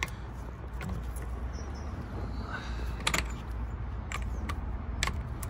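A few isolated sharp metallic clicks from a bottom bracket tool and ratchet being handled on a bike's bottom bracket cup, over a steady low background rumble.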